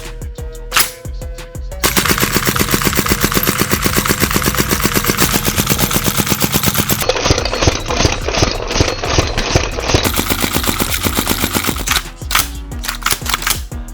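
Shell-ejecting gas-blowback airsoft AR-15 firing on full auto in one long continuous burst from a 100-round drum, starting about two seconds in and stopping about two seconds before the end. A few separate mechanical clicks come before and after the burst.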